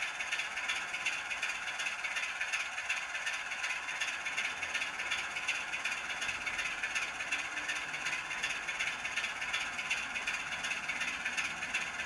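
DCC sound of a model Class 25 diesel locomotive idling steadily at a standstill, a continuous engine sound with a fast, even rattle.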